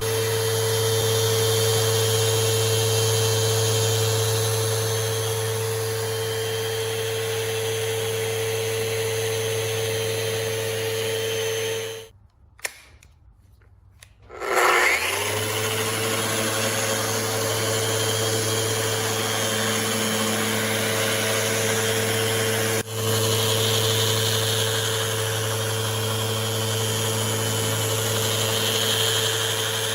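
Festool RO 150 sander running on buckeye burl with its dust extractor drawing through the pad: a steady motor hum over a sanding hiss. Near the middle it cuts out for about two seconds, then spins back up.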